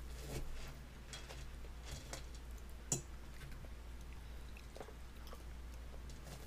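A baby chewing and mouthing finger food, with small wet smacks and clicks scattered through, and one sharp click about three seconds in. A steady low hum lies underneath.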